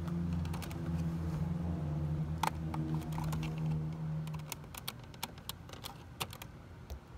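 Small sharp plastic clicks and taps as a thin pick works at the release tab of a door-switch wiring connector. A steady low motor drone runs under them through the first half and stops about four and a half seconds in.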